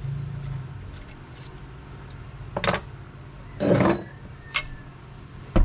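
Small steel bolts and parts clinking as they are handled and set down on a workbench: a few separate clinks and one short clatter in the middle, over a low steady hum. The Allen bolts are being unscrewed by hand from the front of a T-90 manual transmission case.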